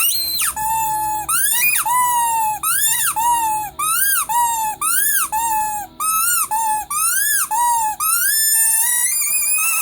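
Rubber squeaky toy squeezed and released over and over: about a dozen short squeaks, roughly two a second, each rising and falling in pitch, then a longer squeak that rises in pitch near the end.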